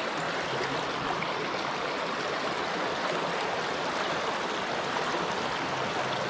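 Small river's current running steadily over rocks, a continuous even rush of water.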